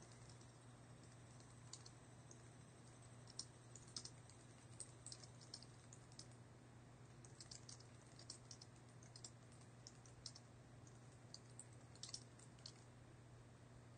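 Faint typing on a computer keyboard: irregular keystrokes in short runs, over a steady low hum.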